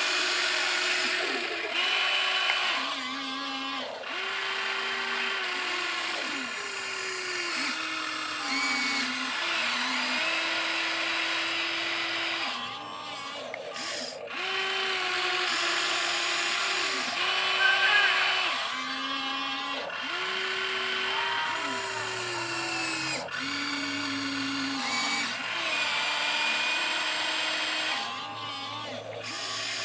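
Electric gear motors of a Huina 1593 RC excavator model whining as the boom, arm and bucket work. The whine comes in stretches of one to two seconds, its pitch stepping up and down as different motors start and stop.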